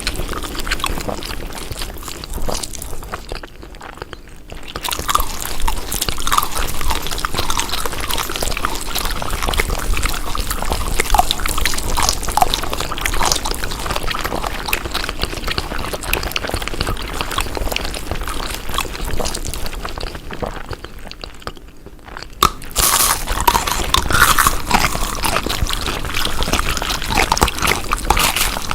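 Close-up chewing of crunchy food: a steady run of crunches and mouth clicks, with two short lulls, about four seconds in and again around twenty-one seconds in.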